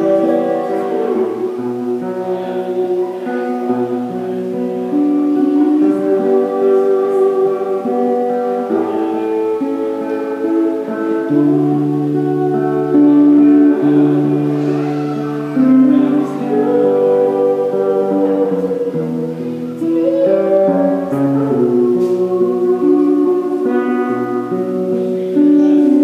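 A young woman singing a slow song with acoustic guitar accompaniment, her voice holding long notes.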